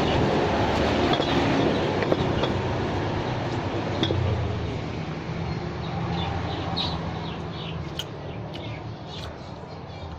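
Hot cooking oil sizzling on a ground chilli-and-garlic paste in a mortar, with scattered crackles. The sizzle slowly dies down as the oil cools.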